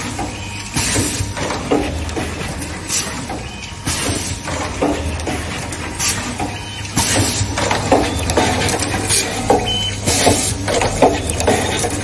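Automatic wire cutting, stripping and double-end ring-terminal crimping machine at work: short hissing bursts and mechanical clacks come about once a second over a steady low hum.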